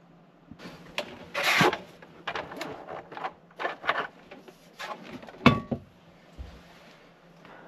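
Hands handling a black plastic cover and a small flat-screen TV: irregular rubbing and scraping with several knocks, the sharpest about five and a half seconds in. A low steady hum runs underneath.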